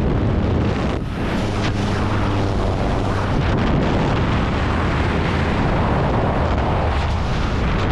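Loud, steady rush of wind and aircraft noise buffeting a helmet-mounted camera's microphone as a skydiver leaves an aircraft's open door and falls free.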